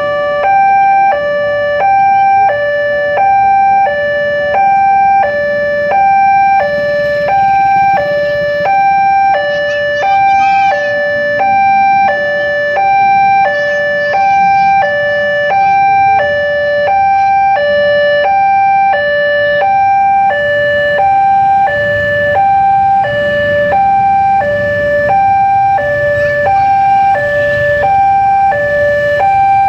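Railway level-crossing warning alarm: an electronic two-tone signal from the crossing's loudspeaker, alternating a higher and a lower tone about once a second without a break, warning that a train is approaching. Motorcycle engines run underneath, more of them near the end.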